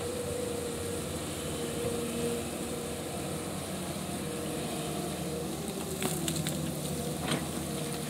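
Wheeled excavator's diesel engine running steadily, with a constant hiss of rushing water and a few sharp knocks about six and seven seconds in.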